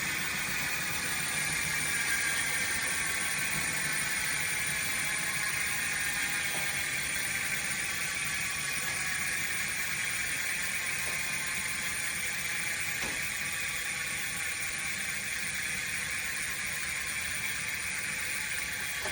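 Mountain bike rear hub freewheeling: the freehub's pawls buzz in a fast, unbroken ratcheting as the wheel coasts, the pitch easing slowly downward as it slows.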